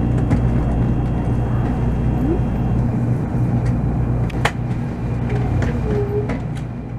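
Shinkansen bullet train heard from inside the passenger cabin as it slows into a station: a steady low rumble and hum, with a few sharp clicks, easing off gradually.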